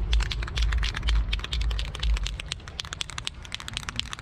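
Aerosol spray paint can (Rust-Oleum Trim and Bumper) being shaken, its mixing ball rattling inside in rapid, irregular clicks to mix the paint before spraying.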